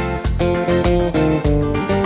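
Background music led by a strummed guitar, with a steady beat.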